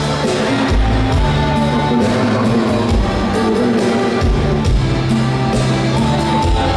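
Live band music played loud through a PA system, with held bass notes, a steady drum beat and keyboard melody lines.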